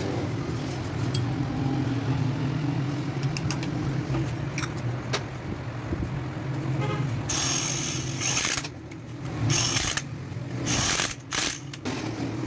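Steady low engine-like hum under small metallic clicks and clinks of engine parts and tools being handled, with several short hissing bursts in the second half.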